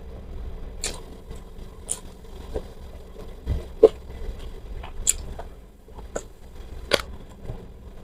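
Close-miked chewing of crunchy food: irregular crisp crunches and wet mouth clicks, roughly one a second, over a low steady hum.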